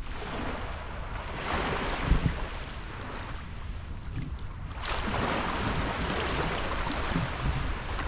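Small sea waves washing in over a shallow sandy shore, surging twice: once about a second and a half in and again from about five seconds, with a low wind rumble on the microphone throughout.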